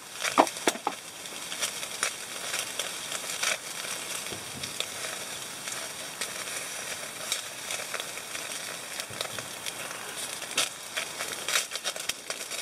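Salted beef tongue slices sizzling on the wire grill of a charcoal shichirin brazier, a steady hiss thick with small crackles and pops from the fire and fat.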